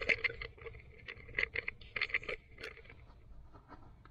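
Irregular rustling and scraping of a cable being pushed and dragged under a car seat, the handling busiest in the first two and a half seconds and thinning out after.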